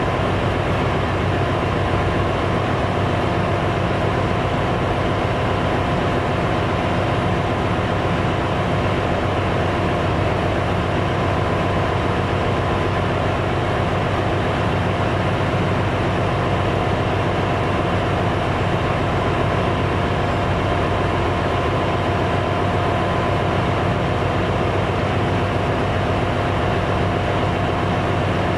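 Steady, loud drone of a ship's engine-room machinery: a dense low rumble with a couple of steady whining tones above it, unchanging throughout.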